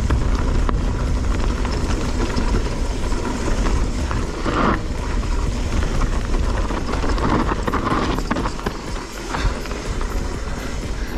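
A mountain bike descending a dirt trail: heavy wind rumble on the microphone with tyre noise, and brief rushes of noise about four and a half and seven and a half seconds in.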